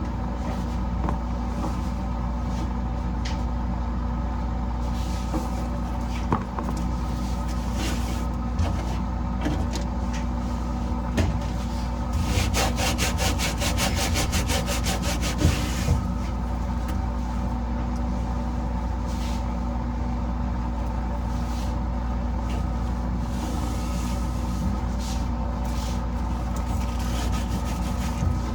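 A steady low hum runs under the whole stretch, with scattered knocks and clunks. About halfway through comes a few seconds of rapid back-and-forth scrubbing strokes, like a cloth rubbed hard on a refrigerator's plastic interior.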